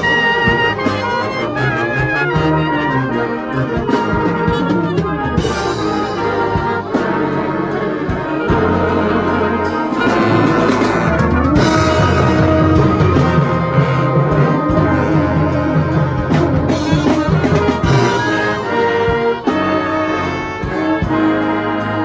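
A brass band playing live: cornets, tenor horns, euphoniums and tubas together in a continuous piece, with a steady bass line under the melody.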